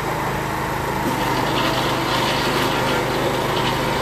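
Electric countertop blender running steadily, its motor whirring as it blends a fresh fruit smoothie.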